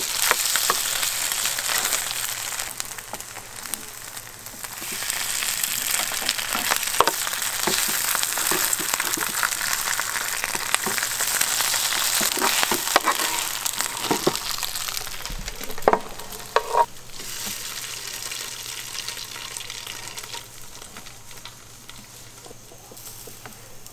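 Strips of kimbap ham sizzling in hot oil in a shallow metal pan. Tongs and a plastic spatula turning them knock and scrape against the pan now and then. The sizzling drops away over the last few seconds.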